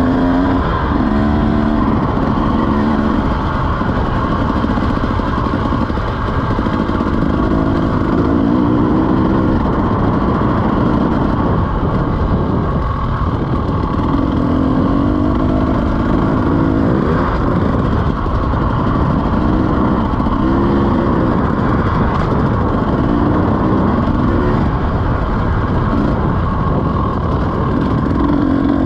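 KTM 300 two-stroke dirt bike engine being ridden, its pitch rising and falling repeatedly as the throttle is opened and rolled off.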